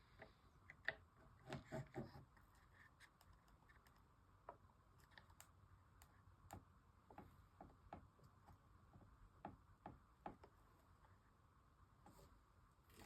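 Near silence broken by faint, scattered small clicks and light knocks, a few of them together about one and a half to two seconds in.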